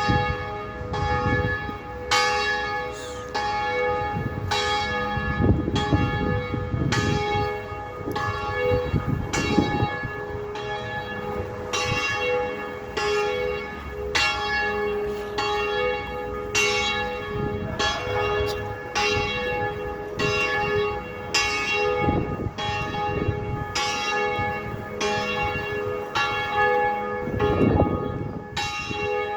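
Bells ringing in a steady run of strikes, each note ringing on and overlapping the next. Gusts of wind rumble on the microphone several times.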